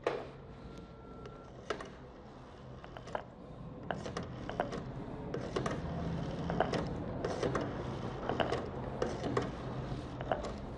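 Telephone being handled and dialled: a few sharp clicks, then from about four seconds in a denser run of clicking and rattling from the dial mechanism.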